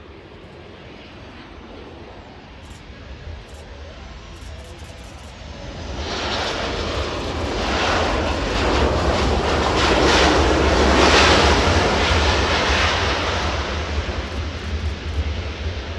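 Boeing 777 jet engines at takeoff power as the airliner passes. The roar swells about six seconds in, is loudest a few seconds later, then slowly fades over a steady low rumble.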